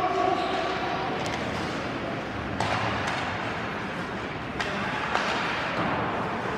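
Ice hockey game heard from the stands: a steady hum of the arena during play, with two sharp knocks from the play on the ice, about two and a half and four and a half seconds in.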